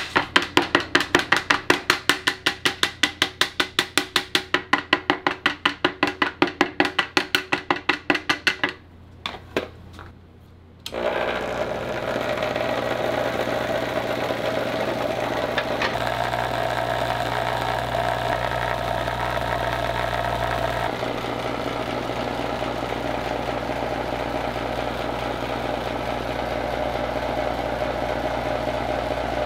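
A filled polycarbonate chocolate bar mould rapped rapidly on the counter, about five sharp knocks a second for some nine seconds, then a few single knocks. At about eleven seconds an electric vibrating plate for chocolate moulds switches on and hums steadily, shaking the tempered chocolate level and driving out air bubbles.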